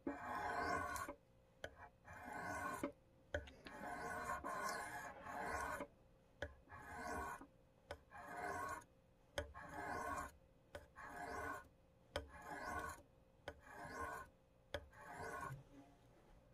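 Steel knife blade being stroked by hand across the white sharpening stone of an AccuSharp tri-stone, a dry rasping rub about a dozen times, roughly one stroke a second with short clicks between strokes, stopping shortly before the end. The strokes work a burr over to the other side of the edge.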